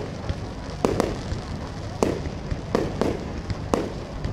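Aerial firework shells bursting overhead in a string of sharp bangs, about one a second.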